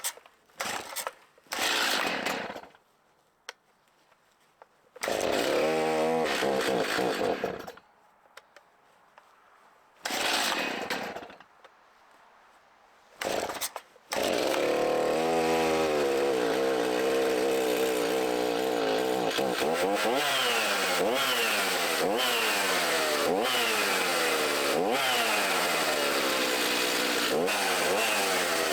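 Stihl two-stroke chainsaw being pull-started: several short pulls and brief firings with pauses between them, then it catches about halfway through and runs continuously. Its pitch dips and recovers again and again, which fits the saw cutting slab wood into stove lengths.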